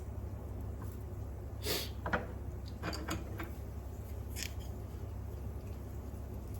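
A few short knocks and clatters of objects being handled, over a steady low hum.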